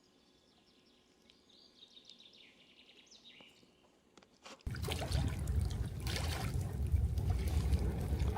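Faint bird chirps over near quiet. About two-thirds of the way in, a loud steady rushing noise cuts in suddenly, water-like and heavy in the low end.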